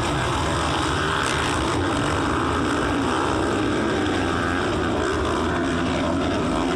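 A pack of motocross bikes running together at high revs, many engines blending into one steady drone.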